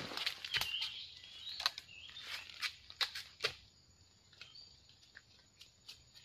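Irregular short knocks and scrapes of a small bladed tool digging and cutting at the base of a young bamboo shoot in dry bamboo leaf litter, busiest in the first three and a half seconds and then sparser and fainter. A few short bird chirps sound in the first half.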